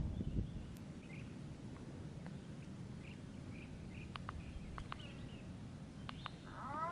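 Quiet outdoor ambience with small birds chirping faintly, a few sharp light clicks in the middle, and a rising whistle-like call near the end.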